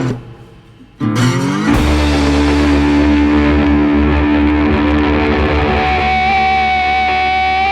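Background music led by a guitar with distortion, holding long sustained notes after a brief drop in level during the first second.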